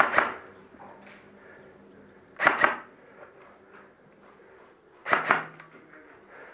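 Airsoft electric rifle firing short bursts of rapid shots: one at the start, another about two and a half seconds in and a third about five seconds in.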